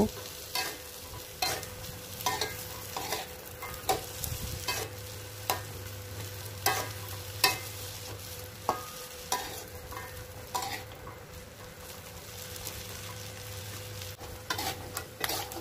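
Metal spatula stirring and turning peanuts as they dry-roast in a little leftover oil in a metal wok, with a faint sizzle. The scraping, rattling strokes come irregularly, about one to two a second. They pause for a few seconds near the end, then resume.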